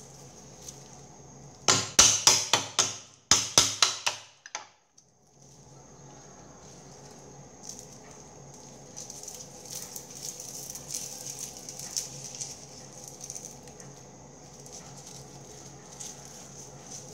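Kitchen utensil striking a hard surface: a quick run of sharp, ringing knocks, about five a second, in two bursts of half a dozen each from about two to four and a half seconds in. After that, a faint steady hum with light scattered ticks.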